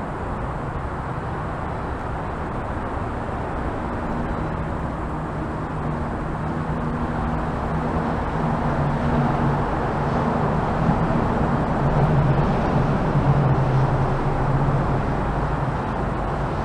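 Steady rumble of road traffic on the bridge overhead, with a low engine drone that swells in the second half.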